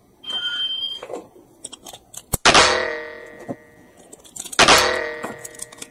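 Two sharp, ringing metallic clangs about two seconds apart, each dying away over a second or so, with a brief steady high tone shortly before them.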